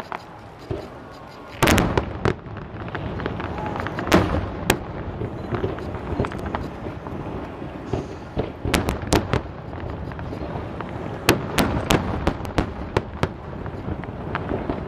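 Aerial fireworks shells bursting in a display: a string of sharp bangs, several coming in quick clusters, the loudest about two and four seconds in.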